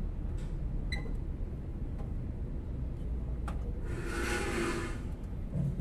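Hand tools working metal under a truck: a single ringing metal clink, then a brief scrape and sharp clicks, over a steady low rumble.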